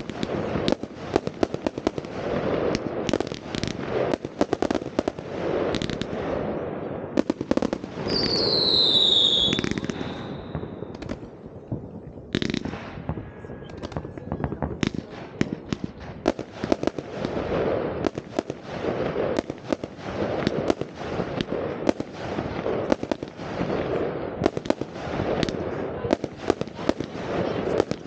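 New Year's Eve fireworks going off: a dense run of bangs and crackling firecrackers, with a falling whistle about eight seconds in. After a brief lull, a single sharp bang starts the banging again.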